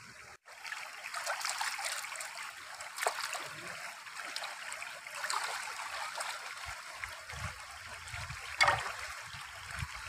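Shallow stream water running and trickling over stones, with hands swishing and splashing in it as chicken innards are rinsed. A sharp splash about 3 s in and a louder one near the end stand out.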